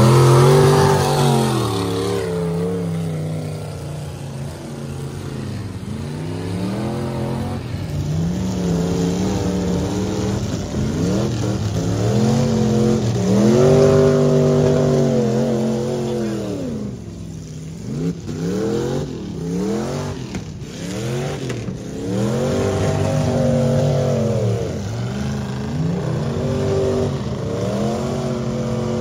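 Mud truck engine revving hard and easing off over and over. Its pitch climbs and falls in long sweeps, with a run of quick short blips of the throttle about two thirds of the way through.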